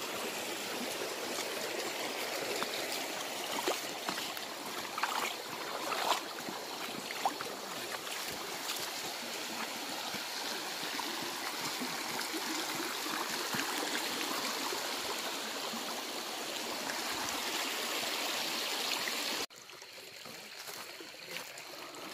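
Shallow stream running over rocks, a steady rushing babble, with a few brief knocks in the middle. About 19 seconds in it cuts off suddenly to a much quieter background.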